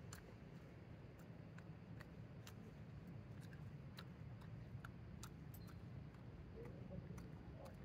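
Faint, irregular sharp ticks and clicks, one or two a second, over a low steady hum.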